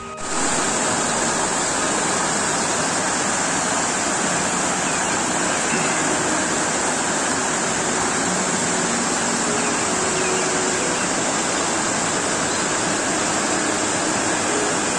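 Fast-flowing mountain stream rushing over rocks: a steady rush of white water.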